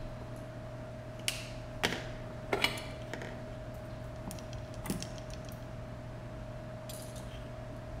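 A few sharp clicks and light clatters of small tools and a tiny plastic-and-carbon drone being handled and set down on a silicone work mat, bunched in the first half, over a steady low hum.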